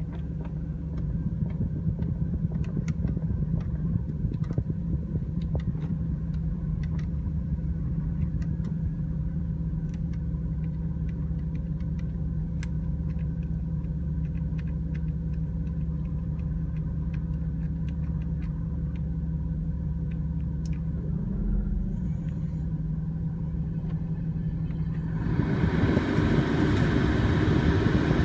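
Porsche engine idling steadily, with scattered faint ticks. Near the end a louder rushing noise comes in over the idle.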